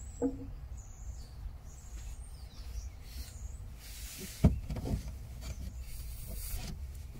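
Quiet background with a steady low rumble and a few faint high bird chirps. A sharp click comes about four and a half seconds in, and near the end there is a short rustle as loose speaker wires are picked up in the car's boot.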